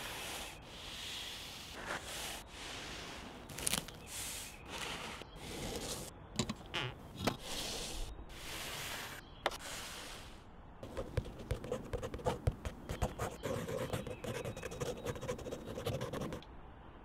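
Scratching and scraping on paper: short chopped bursts of scratchy noise one after another, then about eleven seconds in a denser run of quick scratchy strokes as a pen draws outline letters on sketchbook paper, stopping suddenly near the end.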